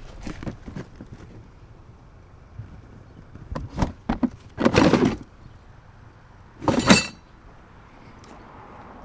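Scrap metal being handled and dropped: scattered knocks and clatters, and near the end of the busy stretch a loud metallic clang that rings briefly.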